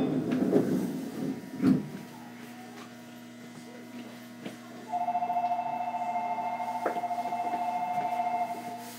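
A trilling two-tone electronic door-closing warning tone at a Tokyo Monorail station, sounding steadily for about three and a half seconds from about halfway in. It signals that the doors are about to close before departure. Before it, a short knock comes just under two seconds in.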